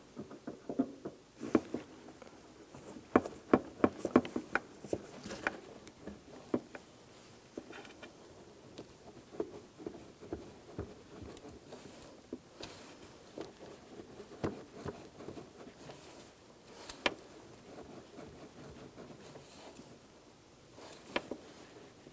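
New rubber power steering return hose being twisted and pushed onto a steel tube by a gloved hand: irregular small clicks and rubbing noises, busiest about three to five seconds in, then sparser single ticks.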